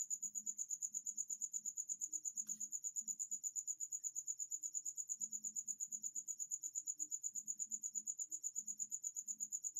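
A cricket chirping steadily, a high, even pulsing note about ten times a second.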